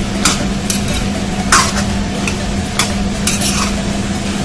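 A spatula stirring diced ash gourd and potato in a metal pan, scraping and clacking against the pan at irregular moments over a steady sizzle of frying.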